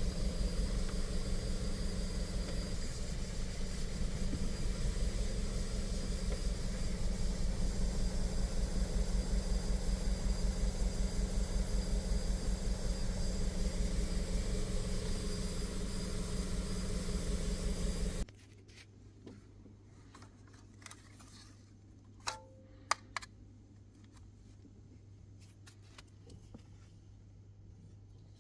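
Audi A3 engine idling with an even low pulse, then switched off and stopping abruptly about two-thirds of the way through. A few light clicks follow.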